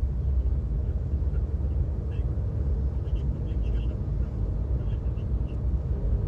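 Steady low rumble of a car driving, road and engine noise heard from inside the cabin, with a few faint short high-pitched sounds over it.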